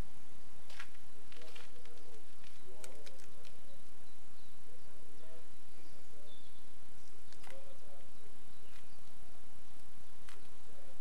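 Open-air background: a steady low rumble with faint distant voices coming and going. A few short, sharp clicks or chirps are scattered through it.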